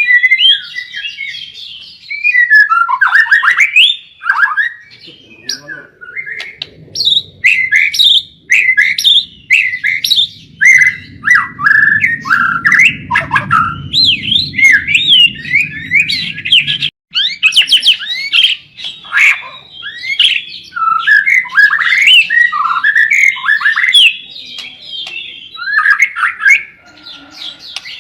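White-rumped shama (murai batu) singing loudly in a fast, varied stream of whistles, chatters and harsh notes, the 'blorok'-style material of a masteran recording, with only brief pauses between phrases.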